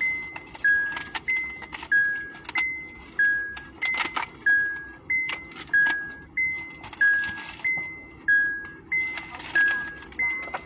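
A car's warning chime dinging over and over, alternating a lower and a higher tone about three times every two seconds, each ding fading quickly. Scattered clicks and rustling of things being handled sound alongside.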